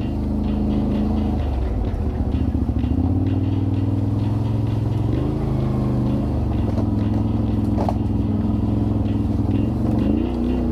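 Off-road 4x4 engine running steadily under load. Its pitch shifts a few times with throttle and gear changes and rises near the end.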